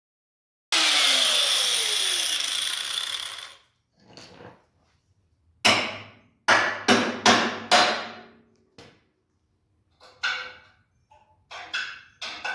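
A power tool, most likely an angle grinder, winding down with its pitch falling after being switched off. A few seconds later a steel part is struck with a hammer: a quick run of about six ringing blows, then a few lighter taps near the end.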